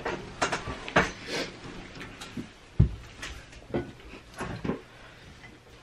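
Seafood boil being eaten by hand: scattered short cracks, clicks and mouth sounds from snow crab shells and food being handled, with one dull thump about three seconds in.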